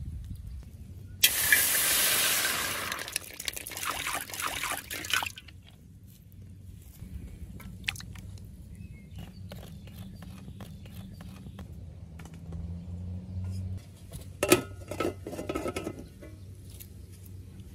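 Water poured into a hot, empty steel wok over a wood fire, a loud hiss for about two seconds, followed by splashing and knocks as pieces of pork are dropped into the water. About fourteen seconds in, an aluminium lid is set on the wok with a sharp, ringing clank.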